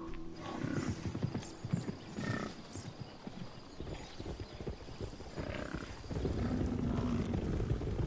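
Bison herd on the move: irregular thudding hoofbeats with a few short calls, turning into a steadier low rumble of hooves near the end.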